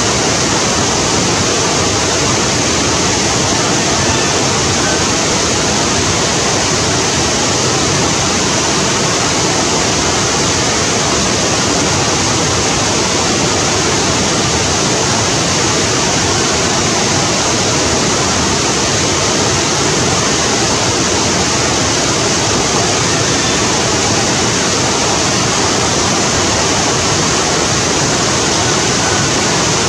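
Whitewater rapids of a fast mountain stream rushing over boulders: a loud, steady wash of water noise that does not change.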